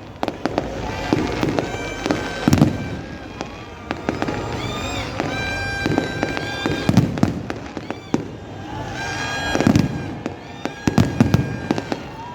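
Fireworks display: rapid crackling bangs and heavy shell bursts, with deep booms landing every one to three seconds. Whistling tones rise and fall between the bursts.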